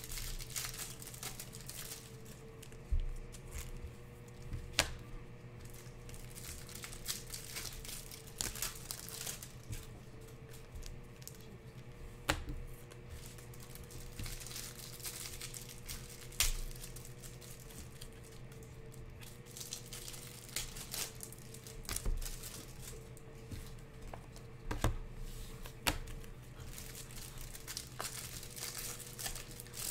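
Thin clear plastic sleeve crinkling and crackling as hands work a stack of trading cards in and out of it, in irregular rustles with scattered sharp crackles. A steady low electrical hum runs underneath.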